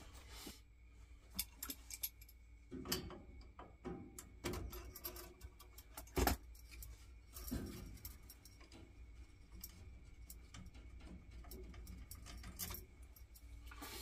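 Faint, scattered clicks and metallic clinks of hand tools and small fittings being handled while a thermocouple is fitted to a boiler's gas valve. The loudest knock comes about six seconds in.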